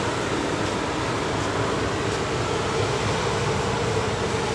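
Steady mechanical drone of a tanker ship's engines and deck machinery, an even hum with no change in level.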